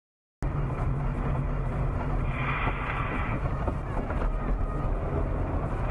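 Dashboard-camera recording of a car driving: a steady engine and tyre rumble, starting suddenly about half a second in, with a brief swell of hiss between two and three seconds in.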